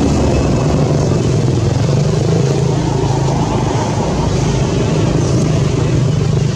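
A motor engine running steadily with a low hum.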